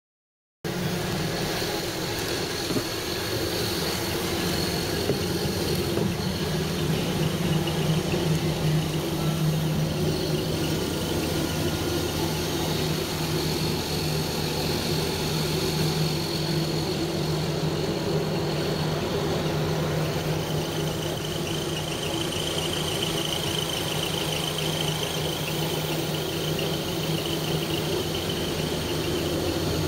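Steady drone of aircraft and ground-vehicle engines on an airport apron, with a high steady whine over a low hum. It starts about half a second in and runs without a break.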